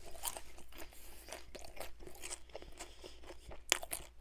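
A person chewing Chinese takeout food close to the microphone: a busy run of short, irregular mouth clicks, with a sharper click near the end.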